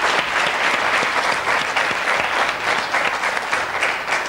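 Studio audience applauding, many hands clapping together.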